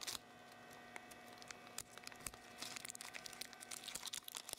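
Clear plastic blister packaging of D-cell batteries crinkling and crackling as it is cut with a pocket knife and pulled open by hand. Faint, with many small crackles that grow busier in the second half.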